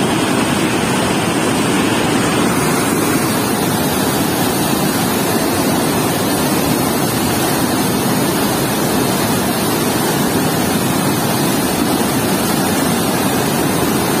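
Water gushing through a weir's sluice gate and churning in the river below: a loud, steady rush.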